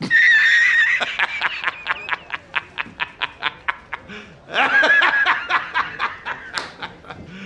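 A man laughing hard and loud: a high drawn-out opening cry, then a fast run of short 'ha' bursts at about five a second, with a second loud peak of laughter around the middle.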